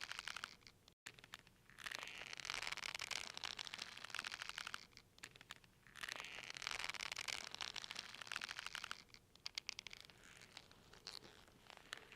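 Bundle of cable twisted between the hands, its layers rubbing against each other to mimic a creaking rope: rough, crackly rubbing in two long strokes of about three seconds each, with a weaker stretch near the end.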